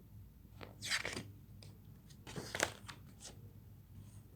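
Book page being turned: paper rustling in two short bursts, about a second in and again, louder, about two and a half seconds in.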